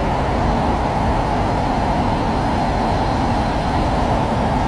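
Steady rushing of a muddy flash flood pouring across flat desert ground, with no breaks or changes.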